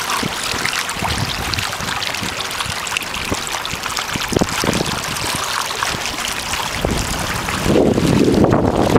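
Choppy water splashing and lapping against the hull of a Sea Eagle Paddleski, with wind buffeting the microphone. A few sharper slaps of water come near the middle, and the wind rumble grows louder near the end.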